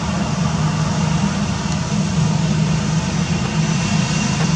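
Airbus A320-214's CFM56-5B turbofan engines running steadily at low power while the airliner rolls slowly on the runway, a continuous low rumble and hiss with no spool-up.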